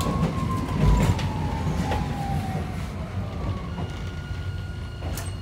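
Hiroshima Electric Railway 3900-series tram running, heard inside the car: the Toyo Denki hybrid-SiC VVVF inverter and traction motors give a whine that falls steadily in pitch over a low running rumble as the tram slows. A steady higher tone comes in about two-thirds of the way through.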